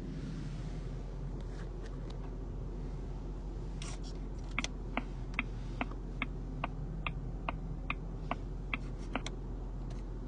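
About a dozen short, evenly spaced clicks, roughly two and a half a second, as buttons on the 2002 Jaguar XJR's centre-console control panel are pressed over and over, over a steady low cabin hum.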